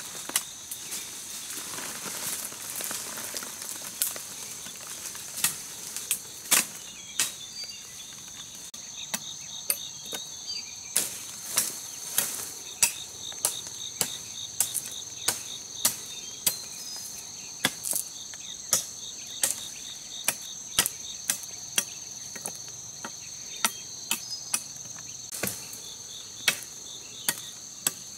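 Machete blade chopping into green branches, sharp strikes about one to two a second, with leaves rustling as a branch is pulled about two seconds in. A steady high-pitched insect chorus sounds throughout.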